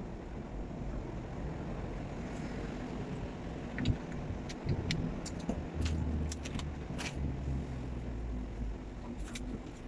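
Low steady rumble, heaviest a little past the middle, with scattered sharp clicks and crinkles from gloved hands handling food on aluminium foil and a plastic water bottle.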